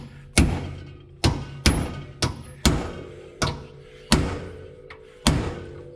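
Hammer striking a steel chisel to drive out a worn suspension bushing held in a vise: about nine sharp metallic blows at uneven intervals, each ringing briefly.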